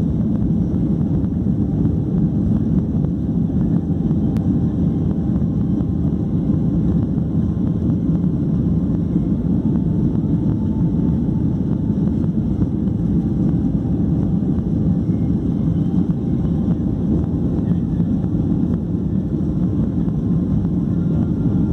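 Cabin noise of a SpiceJet Boeing 737 rolling along the ground, heard from a window seat: a steady low rumble of the jet engines and airflow that holds an even level throughout.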